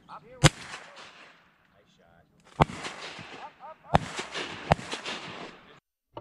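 Four shotgun shots at ducks over a pond: one about half a second in, then three more a couple of seconds later, the last two close together, each followed by a rolling echo.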